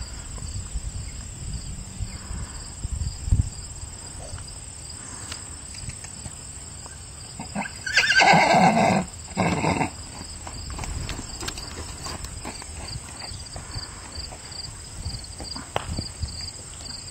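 Palomino Quarter Horse filly whinnying about halfway through: one loud call lasting about a second, broken off and followed by a shorter second part. Her hooves thud on the dirt before and after the call.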